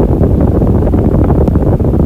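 Electric fan running steadily: a loud, low rush of moving air with a slight irregular flutter.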